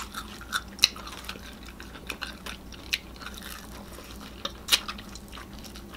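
Biting and chewing of crispy battered fried chicken and seasoned potato wedges, sharp crunchy crackles scattered irregularly, the loudest about a second in and again about three-quarters through.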